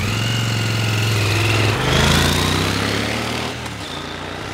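Motorcycle engine pulling away: the note climbs, drops at a gear change about two seconds in, then fades as the bike rides off.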